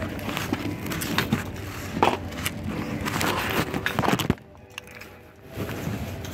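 Gear being handled and packed into the open cargo area of a car: rustling of bags with irregular knocks and clicks, and close handling noise on the microphone. A little past four seconds it cuts to a muffled hush for about a second and a half, then the rustling comes back.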